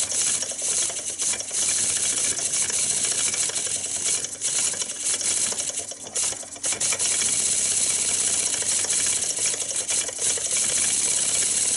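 Stuart S50 model mill engine running on compressed air from a blow gun, its rapid mechanical ticking under a loud steady hiss of air; it has no gaskets or gland packing fitted yet. The sound dips briefly twice, about four and six and a half seconds in.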